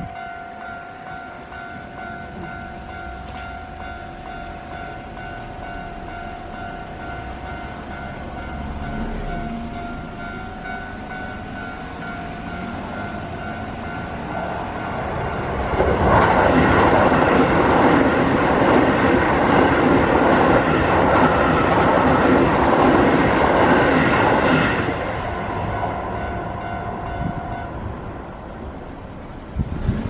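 Japanese railway level crossing's electronic warning bell ringing steadily while a Keio Line electric train passes through, its wheels rumbling and clattering over the rails for about nine seconds in the middle. The bell stops a couple of seconds after the train has gone, as the crossing clears.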